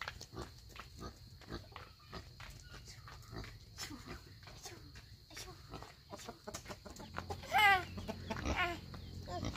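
Farmyard chickens, with scattered light clicks of footsteps and pecking on packed earth. Near the end comes a short run of quick high-pitched calls, the loudest sound.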